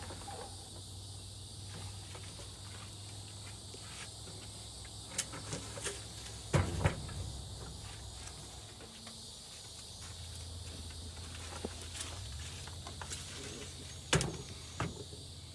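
A plastic in-channel wind deflector being handled and worked in the door's window channel: a few scattered clicks and knocks, the loudest about six and a half seconds in and another near the end, over a steady low hum.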